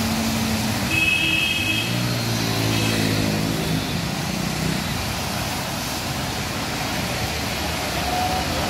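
Traffic driving through a flooded street in heavy rain: a steady hiss of rain and water sprayed up by tyres. A vehicle horn sounds briefly about a second in, and an engine passes close between about two and four seconds in.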